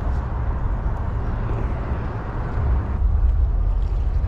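Wind buffeting the microphone: a steady low rumble that grows stronger about three seconds in.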